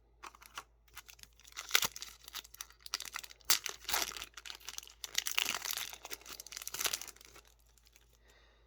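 Foil trading-card booster pack being torn open, its wrapper crinkling and crackling in quick irregular bursts for about seven seconds.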